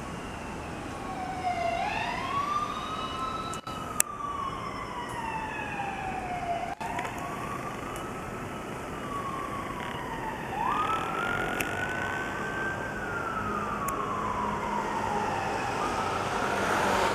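Fire engine's siren wailing in slow rising and falling sweeps, about three cycles of four to five seconds each, over engine and street noise. A single sharp click about four seconds in.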